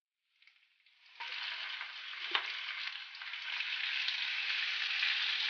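Masala-marinated chicken pieces with onions, curry leaves and green chillies sizzling in hot oil in a pan. The frying starts about a second in and grows a little louder, with one sharp knock a little before the middle.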